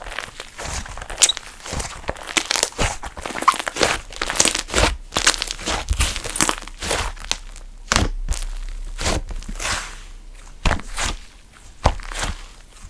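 Handmade slime being squeezed, stretched and kneaded by hand, giving a dense, irregular run of crackles, pops and crunchy tearing sounds.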